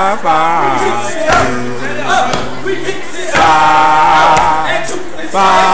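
Music with male voices singing long, wavering notes with heavy vibrato, with a single low thump about a second in.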